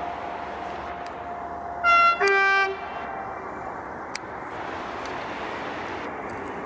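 Freight locomotive's horn giving one short two-note blast about two seconds in, a higher note then a lower one, over the steady noise of the approaching train.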